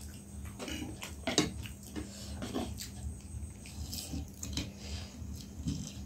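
Close-miked eating sounds: instant noodles being slurped and chewed, with wet mouth smacks. There is a sharp click about a second and a half in.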